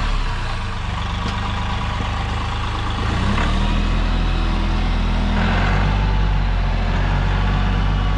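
Compact tractor engine running steadily; its note shifts about three seconds in.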